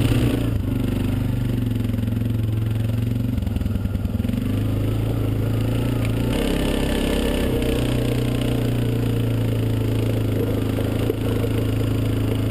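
ATV (quad) engine running under way, its pitch easing off and picking up again a couple of times with the throttle.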